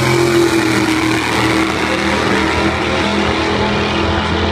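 Drag racing car's engine running hard as the car makes its pass down the strip: a loud, steady engine note that dips slightly in pitch in the first second.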